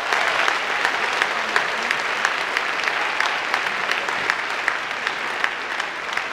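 Audience applause: many people clapping steadily, easing off slightly near the end.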